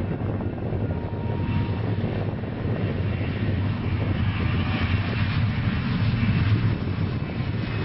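Boeing C-17 Globemaster III's four turbofan jet engines running at high power as the transport rolls down the runway, a steady loud rumble that swells slightly near the end.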